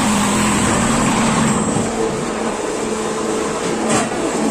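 Machinery running steadily: a constant hum under an even rushing noise, with a single knock near the end.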